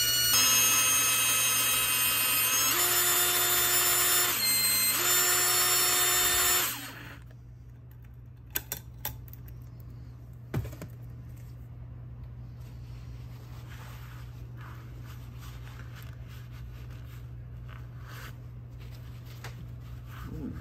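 Power drill spinning a brake cylinder hone inside a motorcycle brake caliper's cylinder bore, lubricated with brake fluid, to clean up the corroded bore. It runs with a steady whine for about seven seconds, its pitch shifting a couple of times, then stops, leaving a few light clicks of handling.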